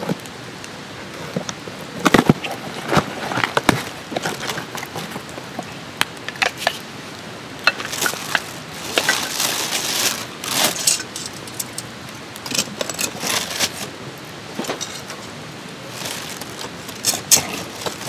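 Split-wood fire crackling and popping in a folding fire stand, mixed with the rustle of the plastic bag inside a box of lump charcoal being opened and pieces of charcoal knocking together. The rustling comes in bursts, heaviest about eight to ten seconds in and again near the end.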